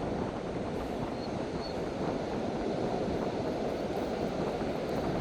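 Steady rushing noise of surf and wind on the microphone.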